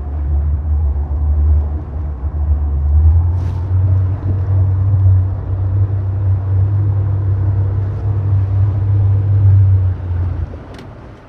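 Boat's outboard motor running hard in reverse, a deep steady drone that steps up in pitch about three seconds in. It is backing the boat against a stuck anchor to break it free, and it eases off near the end.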